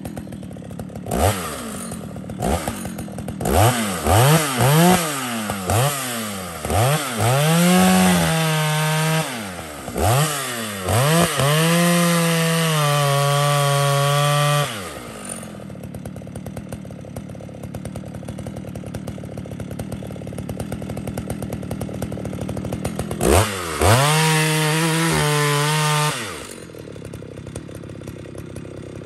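Jonsered 920 two-stroke chainsaw revved up and down several times in quick blips, held at high speed for a few seconds, then dropped back to idle. About eight seconds later it is blipped and held high again briefly, then returns to idle near the end.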